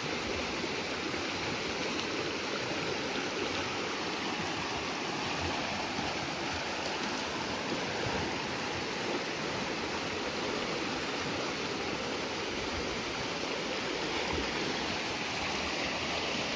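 Flash-flood water rushing fast down a swollen, muddy creek after heavy rain: a steady, loud rush of water.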